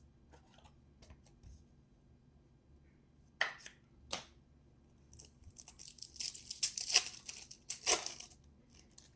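A trading card pack's wrapper being torn open and crinkled: two sharp crackles about three and a half seconds in, then a longer run of tearing and crinkling that peaks near the end.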